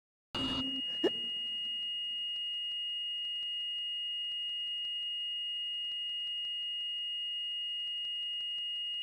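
Hospital heart monitor flatlining: one continuous steady high-pitched tone that starts suddenly out of silence, the sign that the patient's heart has stopped. A brief knock about a second in.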